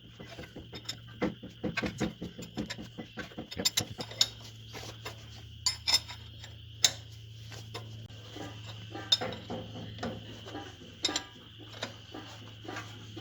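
Irregular metallic clicks and clinks of a wrench working a nut welded onto a snapped bolt, trying to back the broken bolt out of the frame.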